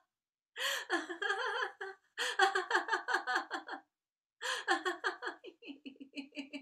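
A woman laughing in three long bouts of rapid, evenly pulsed laughs with short silent breaks between them. This is deliberate laughter from a laughter-yoga meditation. The last bout thins out into softer, quieter laughs near the end.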